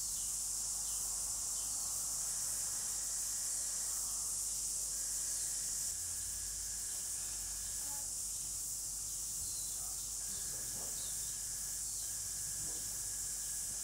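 Steady high-pitched hiss with no speech, and a faint thin tone that comes and goes beneath it.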